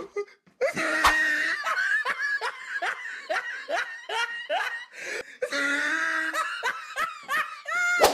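Hearty human laughter: a long run of short, downward-sliding 'ha' sounds, about three a second, with louder drawn-out laughs near the start and again past the middle.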